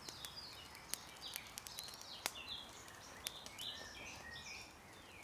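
Songbirds chirping in short rising and falling phrases, with a scatter of sharp crackles from the charcoal embers under a steak laid directly on them.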